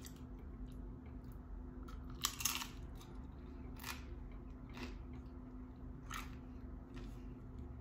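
Tortilla chip being bitten and chewed close to the microphone: a loud crisp crunch about two and a half seconds in, then single crunches about once a second as it is chewed.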